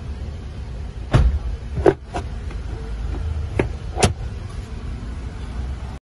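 A car's plastic glove box clicking and knocking as it is fitted back into the dash and shut: about five sharp clicks and knocks, the loudest about a second in, just before two seconds and about four seconds in, over a steady low rumble.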